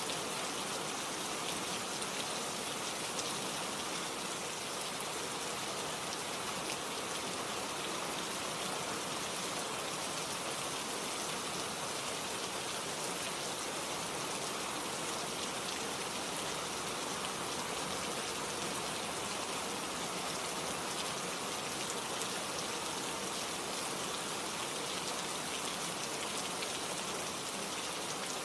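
Steady rain falling, a dense even patter of drops with no let-up.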